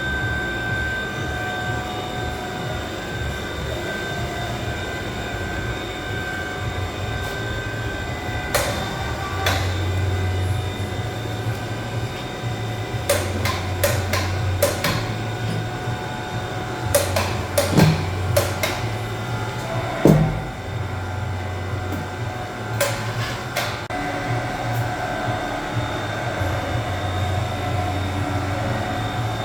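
Three-axis CNC machining centre milling steel: a steady spindle whine over a low rumble that swells and eases every few seconds, with scattered sharp clicks and knocks, most of them in the middle of the stretch.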